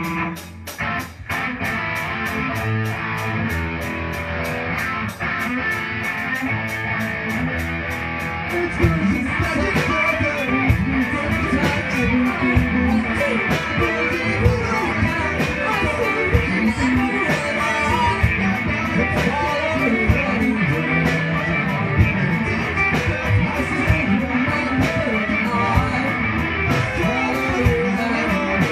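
Live rock band playing, led by electric guitars. About nine seconds in the music grows louder and fuller, with singing over the guitars and a steady beat.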